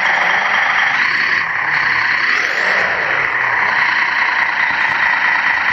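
Steady mechanical running noise with a constant high whine, from a radio-controlled model heavy-haulage truck, with faint rising and falling pitch sweeps in the middle.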